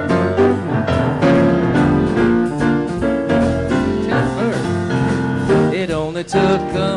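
Grand piano and upright bass playing a song passage live, with a man's voice coming in without words about four seconds in, sliding between notes.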